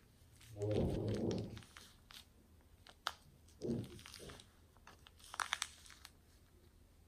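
Foam beads being squeezed out of a plastic piping bag: the bag crinkles and the packed beads crunch against each other in two rough squeezes, then a quick cluster of sharp crackles near the end.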